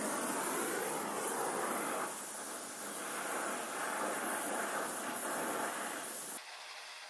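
Oxy-fuel gas welding torch flame hissing steadily while welding seams in aluminium body panels; the hiss drops sharply in level about six seconds in.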